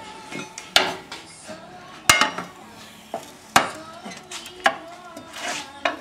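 Steel pry bars clinking and clanking against a lawnmower engine's flywheel as they are worked under it to lever the tight flywheel off the shaft. About half a dozen sharp metal clinks, irregularly spaced.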